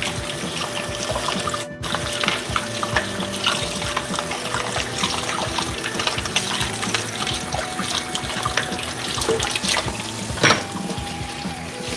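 Kitchen faucet running into a stainless steel sink while dishes are rinsed and scrubbed under it, with small clinks of crockery and utensils. A louder clack near the end.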